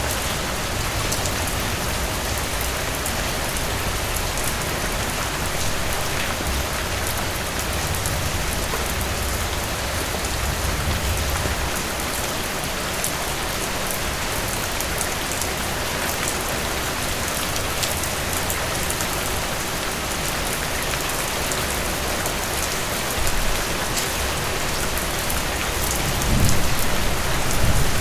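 Heavy rain falling steadily, a dense even hiss of drops hitting a surface with fine individual drop ticks in it. A low rumble swells briefly a little before the end and again at the very end.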